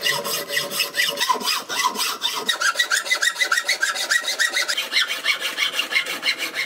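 Hacksaw cutting through elk antler in rapid, even back-and-forth strokes, the blade rasping on the hard antler.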